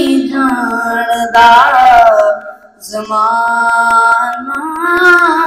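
A boy singing a Punjabi manqabat unaccompanied into a microphone: two long melodic phrases with held, wavering notes and a short breath pause about halfway.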